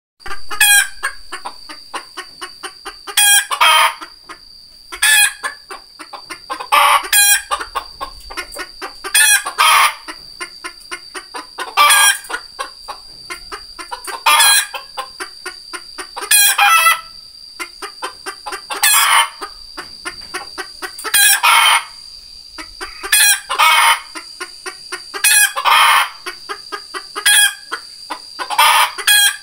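Red junglefowl rooster calling over and over, a loud call about every two seconds with quick rows of short clucks between. A steady high whine runs underneath.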